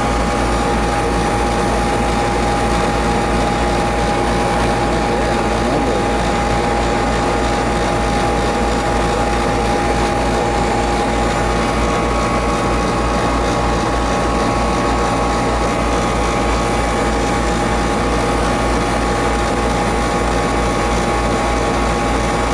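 Home heating equipment running steadily: a loud, even machine hum with a steady whine over it and no bang or knock.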